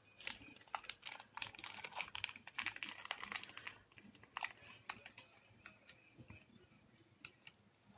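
Plastic sweet wrapper crinkling and crackling as small hands handle it, densely for the first few seconds, then in scattered clicks.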